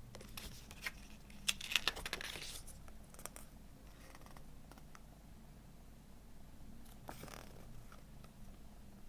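CD packaging being handled: a quick run of sharp clicks and rustling about two seconds in, a few small clicks after it, and another short rustle near the end.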